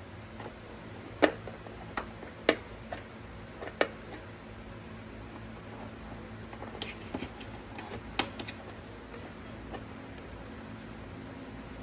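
Scattered sharp clicks and light knocks of parts and hand tools being handled during scooter wiring work, about seven in all, the loudest a little over a second in and again near the middle.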